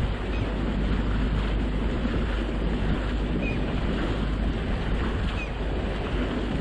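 Steady low rumble of wind on the microphone aboard a boat on the water, with rushing water noise and a few faint short chirps.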